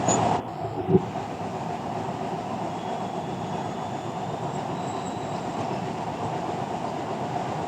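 Metro train running: a steady rumble heard from inside the carriage.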